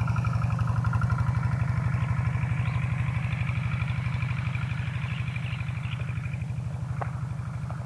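Small single-cylinder engine of a kuliglig hand tractor running steadily with an even firing beat, easing off slightly in loudness toward the end.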